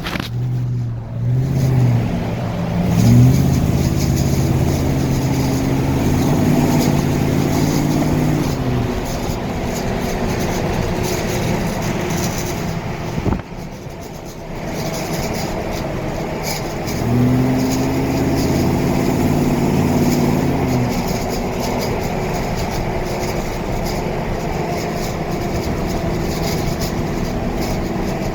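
Car driving, its engine note rising through the revs twice under acceleration and then settling, over steady road noise. Short ticking through it is the rattle the recording was made to catch.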